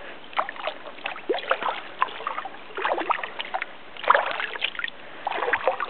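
Kayak paddle strokes in calm water: the blade dipping in and water dripping and splashing off it in quick, irregular little splashes.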